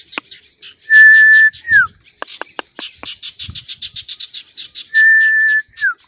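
Two loud, clear whistles, each a held steady note ending in a quick downward slide, the first about a second in and the second near the end. Underneath, insects keep up a fast, even ticking and a steady high hiss.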